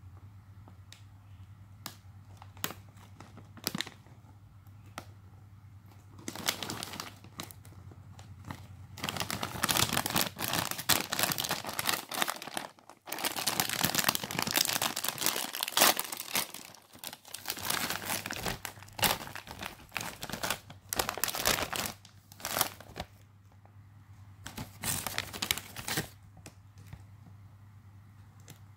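Foil-lined plastic snack bag of Doritos tortilla chips being handled, crinkled and torn open by hand: a few light crackles, then loud spells of crinkling through the middle that die away near the end. A faint steady low hum runs underneath.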